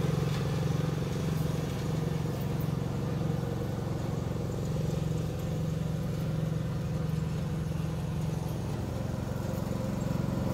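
Steady low mechanical hum of a running machine, unchanging throughout.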